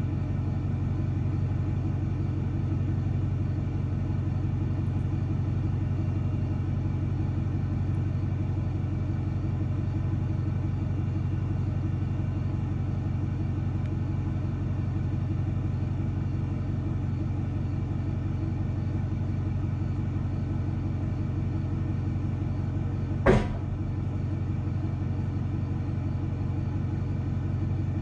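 An engine running steadily at an even idle, with one sharp knock near the end.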